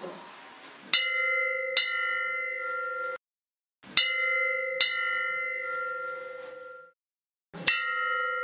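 A hanging metal temple bell rung by hand. There are five clapper strikes, in two pairs and then a single, and each leaves a steady clear ring. The ringing cuts off abruptly twice.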